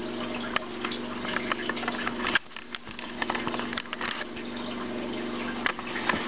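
Rustling handling noise with scattered small clicks over a steady low hum.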